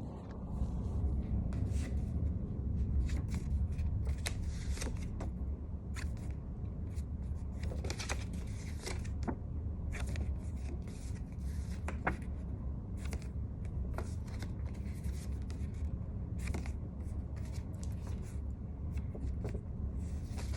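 Irregular rustling and light clicks, as of things being handled, over a steady low hum.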